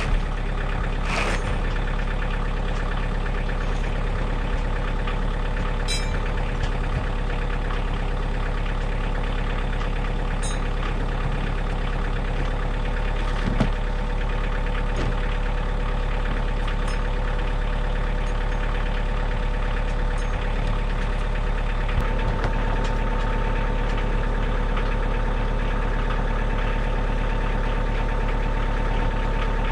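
Diesel compact tractor engine running steadily at idle. About two-thirds of the way through, a higher steady whine joins it.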